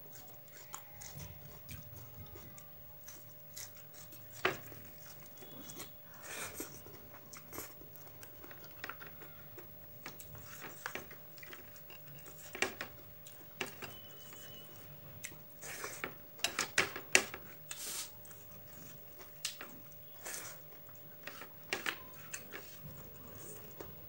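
Close-miked mouth sounds of a person eating rice and beef curry: chewing with irregular wet clicks and lip smacks, coming thickest in a quick cluster about two-thirds of the way through.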